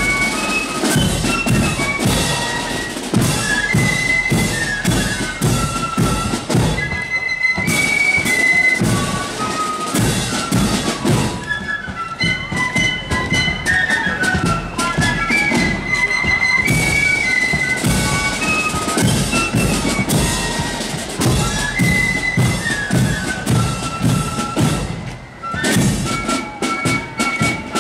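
Marching flute band playing a tune as it parades: shrill flutes carry the melody over a steady drum beat. There is a short lull in the music near the end.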